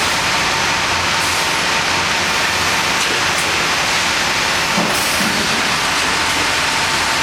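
A hardwood gang edger running in a sawmill: a loud, steady din of saws and feed machinery with a faint high whine and a few brief knocks.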